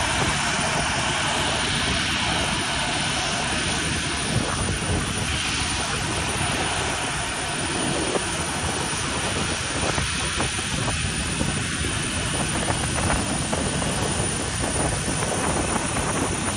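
Jet airliner engines running: a steady, loud, broad noise with a thin high whine held over it.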